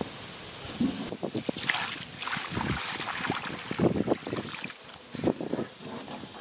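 Water poured into a hollow in a dry sand-and-cement mix, then sloshing and splashing in the puddle as it settles against the mix.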